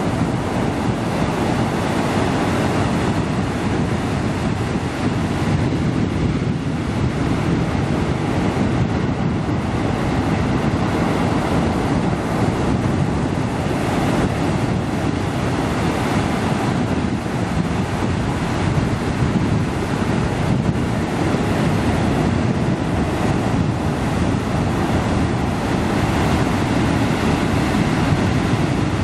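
Ocean surf breaking and washing over a rock shelf: a continuous, steady roar of moving water, heaviest in the low end, with no single standout crash.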